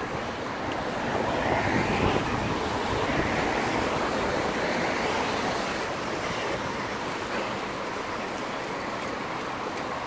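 Wind rushing over the microphone of a handheld phone carried on a run, a steady noise that swells about a second in and eases after about five seconds.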